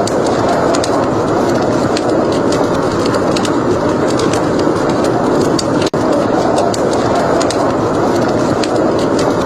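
Wood fire crackling: scattered sharp little pops over a steady, loud rushing noise. The sound cuts out for an instant about six seconds in.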